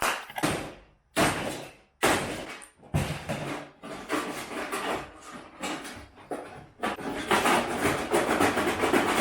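Parts of a microwave oven being wrenched and pulled apart: several separate sharp knocks and clanks, then a dense, continuous clatter and rattle from about seven seconds in.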